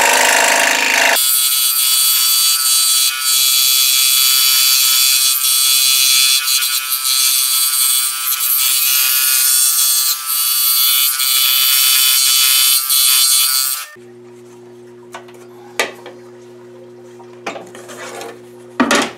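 Scroll saw fitted with a number 5 blade cutting a 1/4-inch masonite pattern, a loud steady high-pitched buzz. About 14 seconds in the cutting sound stops abruptly, leaving a much quieter, lower steady hum with a few clicks.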